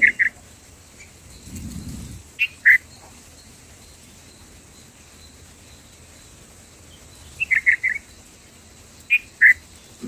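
Short, clear bulbul calls in small clusters: a pair of notes about two and a half seconds in, a quick run of four notes near eight seconds and two more near the end. A brief low rumble comes at about two seconds in.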